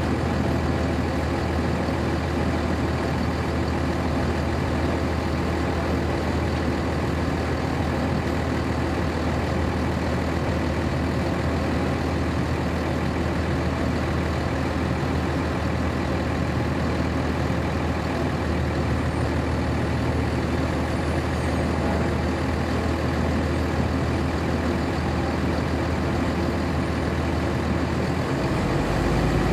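The Cummins ISC inline-six diesel of a 1999 NovaBus RTS transit bus, heard from inside the bus, running with a steady low drone. About a second before the end the drone drops deeper and swells slightly.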